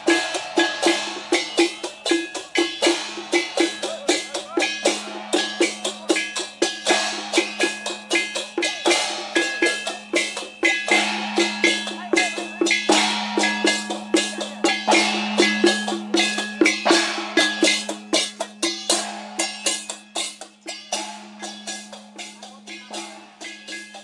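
Chinese temple procession percussion of drums, gongs and cymbals beaten in a fast, steady rhythm over a steady low tone. The beating grows softer near the end.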